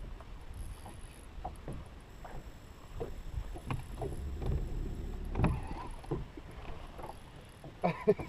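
Small waves slapping against a fishing boat's hull in irregular short splashes, with a steady low rumble of wind on the microphone.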